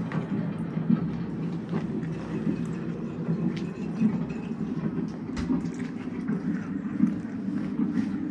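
Steady low hum of room noise with scattered, irregular light clicks and knocks.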